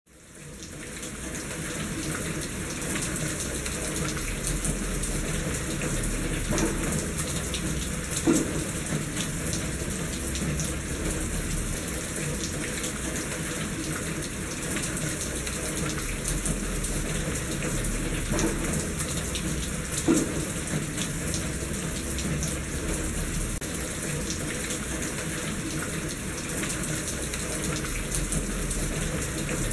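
Steady rain falling, a continuous hiss with single drops heard now and then. Two louder knocks stand out, about eight seconds in and about twenty seconds in.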